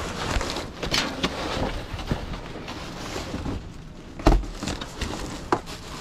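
Rummaging through discarded items in a dumpster: scattered clatter and rustling, with one louder knock about four seconds in.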